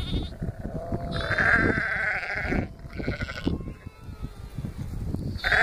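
Sheep and lambs bleating: three calls, the longest starting about a second in and held for over a second.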